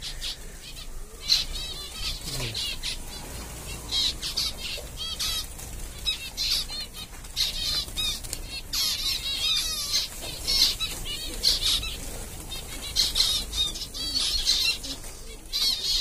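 A flock of zebra finches giving many short, high chirping calls in quick runs, with wings fluttering as the birds fly about the aviary. The birds are frightened by a person inside the cage.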